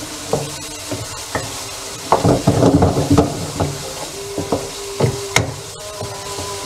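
Shrimp, fish balls and fish cake frying in oil and sautéed spice paste in a pan, with a steady sizzle while a spatula scrapes and knocks against the pan as they are stirred. The stirring is busiest about two to three seconds in, with one sharper knock a little after five seconds.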